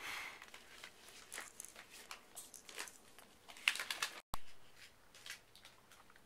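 Baby sucking and gnawing on a small piece of fruit: soft, irregular wet mouth clicks and smacks. The sound cuts out abruptly about four seconds in, and fainter clicks follow.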